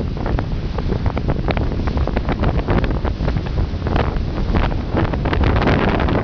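Strong wind buffeting the microphone: a loud, steady low rumble broken by many short crackles as the gusts hit.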